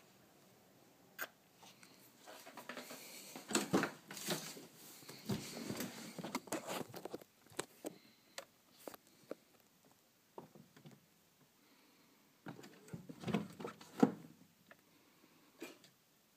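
Scattered clicks, knocks and rustling, with two busier stretches about four and thirteen seconds in.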